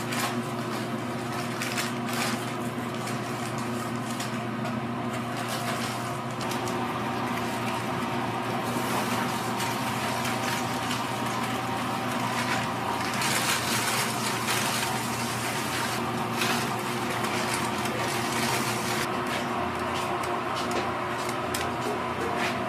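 Hot oil sizzling and crackling in a commercial deep fryer as battered vegetable fritters fry, over a steady hum of kitchen equipment.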